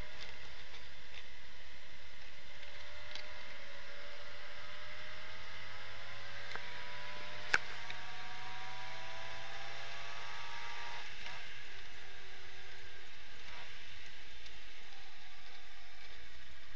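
Triumph Herald 1200's four-cylinder engine heard from inside the cabin while driving, rising slowly in pitch as the car pulls through a gear, then dropping at a gear change about eleven seconds in. A single sharp click sounds about halfway through.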